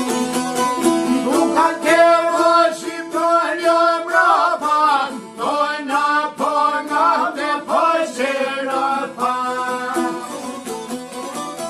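A man singing a traditional folk song over a fast-plucked string instrument. The voice comes in about a second in and drops out near the end, while the plucking runs on.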